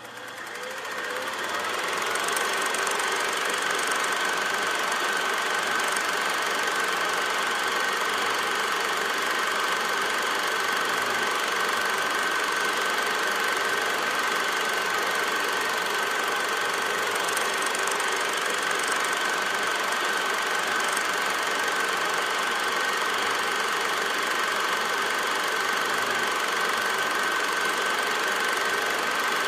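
A small machine running steadily, with a constant high whine over an even mechanical clatter, fading in over the first couple of seconds.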